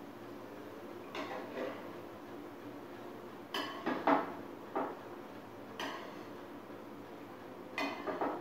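Slotted metal spatula scraping under fried potato patties on a frying pan and clinking against a steel plate as they are lifted off: a handful of short, separate scrapes and clinks, the loudest about four seconds in.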